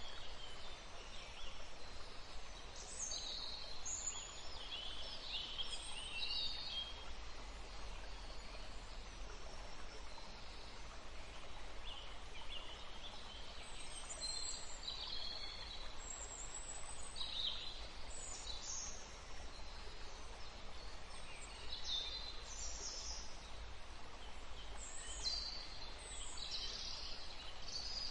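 Birds chirping, short high calls coming in scattered clusters over a steady low background noise.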